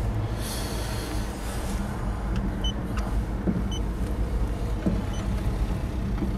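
A paint thickness gauge gives several short high beeps about a second apart as readings are taken on the car's body panels. Under it runs a steady low rumble.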